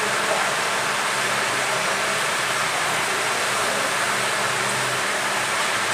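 Hot-air rework gun blowing steadily, an even hiss with a faint low hum from its fan, heating the solder to seat a new phone charging port.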